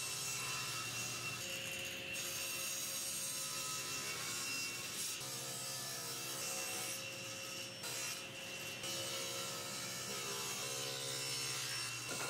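Table saw running and cutting oak boards to length, a steady motor hum and blade whine with the noise of the blade going through the wood.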